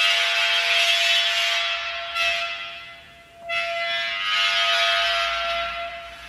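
Bent aluminium stick carving into a sand and gypsum mixture, giving a loud, high screech that starts abruptly and fades. A short second scrape comes about two seconds in and a longer third about three and a half seconds in, over a faint steady tone.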